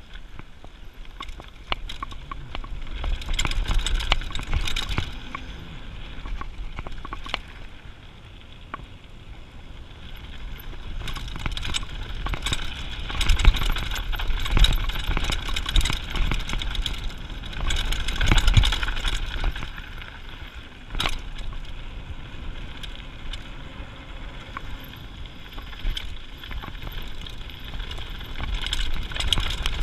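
Mountain bike going downhill on a gravel trail: tyres crunching over loose gravel and the bike rattling over bumps, with wind rumbling on the camera's microphone. The noise comes and goes in loudness.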